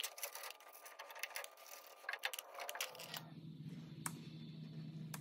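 Exhaust tailpipe and band clamp being handled and fitted by gloved hands: a quick, irregular run of metal clicks, taps and scrapes. After about three seconds it drops to a faint low hum with a single click.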